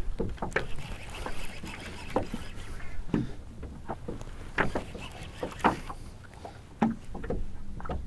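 Water sloshing against the hull of a small fishing boat, with irregular sharp knocks and clicks in the boat.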